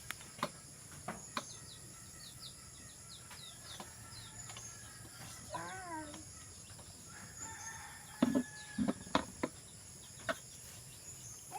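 Quiet background with repeated short high chirps of small birds, a louder pitched bird call about six seconds in and another soon after, and a few sharp knocks near the start and again about eight to ten seconds in.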